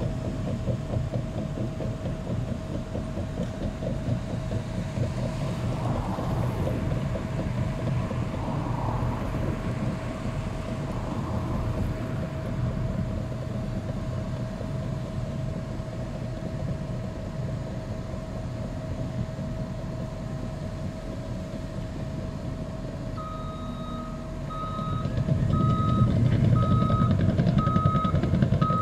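Caterpillar D5 crawler dozer's diesel engine running under work, with a steady whine over the rumble. Near the end a reversing alarm beeps about once a second over louder heavy machinery.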